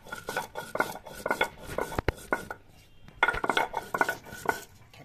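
Stone roller rubbed back and forth over a flat grinding stone (sil-nora), grinding whole spices into masala paste: a quick series of grating scrapes, roughly two to three a second, with one sharp knock and a short pause about halfway through.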